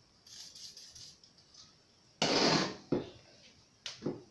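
Brunox aerosol oil sprayed onto a brass gun part: a short soft hiss, then a louder half-second rush about two seconds in, followed by two light knocks.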